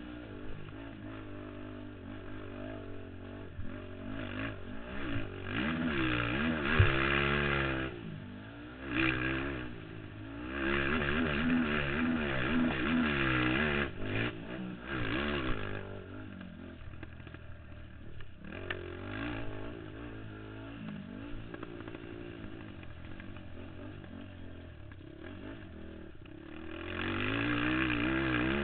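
Racing ATV (quad) engine heard from a camera mounted on the quad, revving up and down as it is ridden hard around a dirt motocross track, with louder full-throttle pulls in stretches and rattling from the machine. A single sharp knock about seven seconds in.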